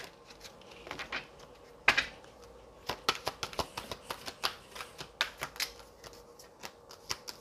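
A run of irregular light clicks and taps, a few a second, from cards being handled, over a faint steady hum.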